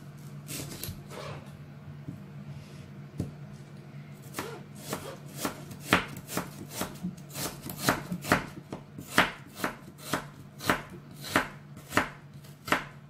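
Kitchen knife slicing a red onion on a plastic cutting board: a few scattered cuts at first, then steady, quick knife taps against the board, about three a second, from about four seconds in.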